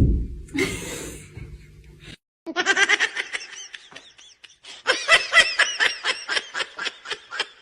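A person laughing in quick repeated bursts, two runs of laughter a couple of seconds apart. They are preceded by a sudden knock and some clatter that stops abruptly.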